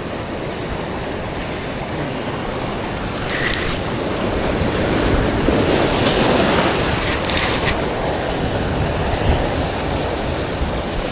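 Ocean surf breaking and washing over a rocky shoreline, with wind buffeting the microphone; the surge of water swells louder around the middle.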